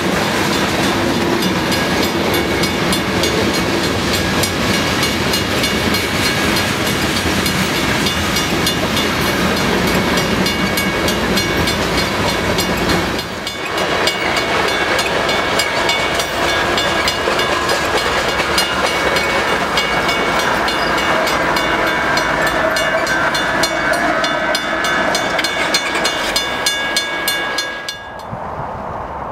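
A freight train's covered hopper cars rolling past close by: a steady rumble with quick clicking of the wheels over the rail joints and steady high ringing tones over it. The sound drops away suddenly near the end.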